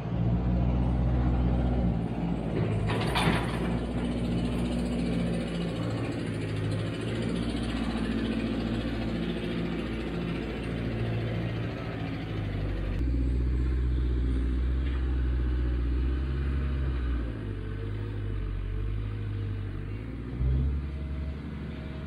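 Engines of a New Holland skid steer and a Broderson crane running under load, the engine note stepping up and down, with a short hiss about three seconds in.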